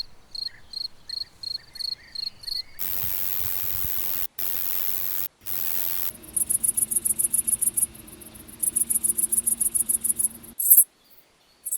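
Crickets of several species singing, one recording after another: first a regular chirp about three times a second, then a continuous high buzzing trill, then fast pulsing high-pitched chirps. Each is a different species' song.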